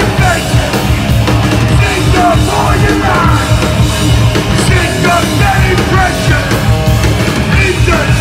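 New York hardcore band playing live and loud, with distorted electric guitar, bass and drums and a singer shouting into the microphone.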